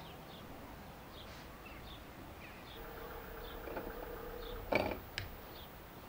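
Faint bird chirps repeating every half second or so over a quiet background, a steady hum for about two seconds, then a sharp click near the end followed by a lighter one.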